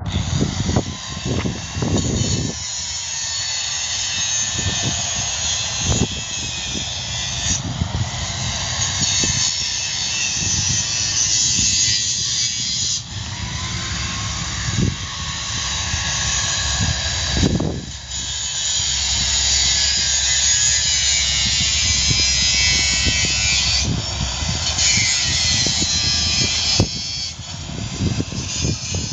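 A power tool cutting: long runs of harsh hissing noise broken by short pauses every few seconds, with scattered knocks and clatter.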